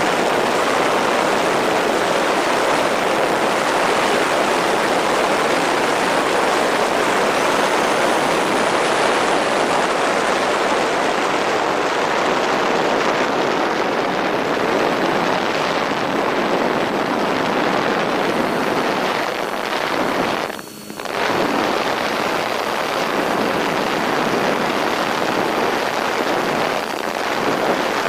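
Steady rush of airflow and propeller noise on a camera riding atop a twin-motor MFD Crosswind Nimbus Pro RC plane in flight. The noise dips sharply for about half a second around two-thirds of the way through.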